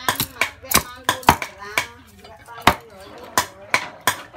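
A cleaver chopping raw chicken on a chopping board: a dozen or so sharp, uneven chops, about two to three a second.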